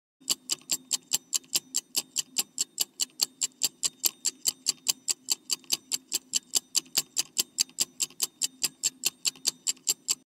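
Countdown timer sound effect: fast, even clock-like ticking, about five ticks a second, over a faint low hum.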